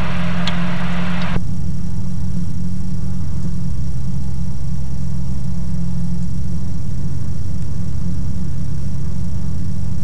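Ikarus C42 microlight's engine and propeller running steadily, a constant drone. At the start a burst of hiss sits over the drone and cuts off sharply about a second and a half in.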